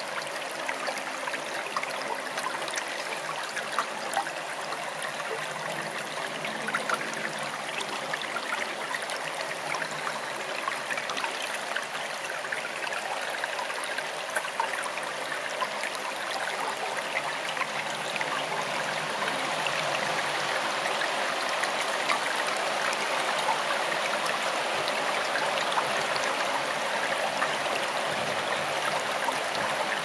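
Forest stream flowing steadily, a continuous rush of moving water flecked with small splashes, growing slightly louder about two-thirds of the way through.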